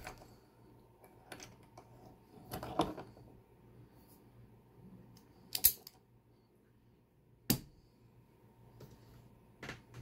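A handful of separate sharp metal clicks and knocks as a Mul-T-Lock Interactive padlock is handled in a small bench vise and lifted out, the loudest a little past halfway.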